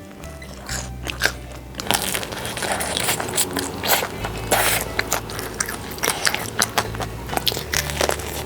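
Close-miked crunchy bites and chewing into a crispy deep-fried hollow batter ball, the shell cracking in many sharp crackles.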